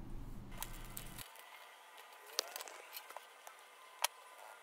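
Faint scattered clicks and taps of small metal hotend parts and tools being handled on a desk, with a sharper click about four seconds in.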